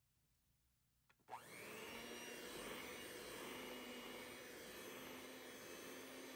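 Electric hand mixer switching on about a second in, its motor spinning up with a brief rising whine and then running steadily as the twin wire beaters whip chocolate batter in a glass bowl.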